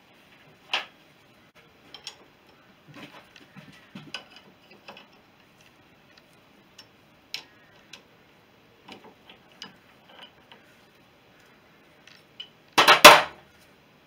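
Scattered metal clicks and clinks of spanners working on a taper-breaking tool in the magdyno drive sprocket of a BSA B31 engine. About 13 seconds in comes a short burst of loud metallic clatter.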